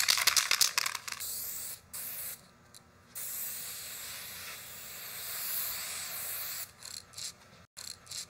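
Electronic static hiss, crackling in the first second, dropping out twice, then steady before breaking into rapid stutters near the end: a glitch-style static sound effect.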